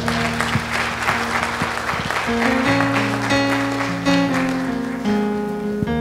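Congregation applauding over keyboard music playing held, steady chords. The applause dies away near the end while the chords carry on.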